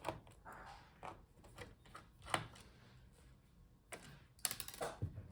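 Faint scattered clicks and taps from handling a laptop's plastic bottom case as it is taken apart, with a quick run of several clicks about four seconds in.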